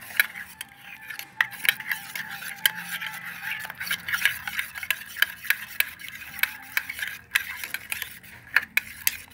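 Metal spoon stirring and scraping fabric glue with slime activator in a stainless steel bowl, with irregular clinks and scrapes of spoon against steel as the slime starts to form.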